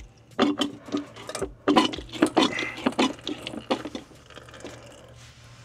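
Hand-operated fluid pump being worked to push gear oil into the front differential, with irregular squishing and clicking strokes, as the diff is nearly full. The strokes stop about four seconds in.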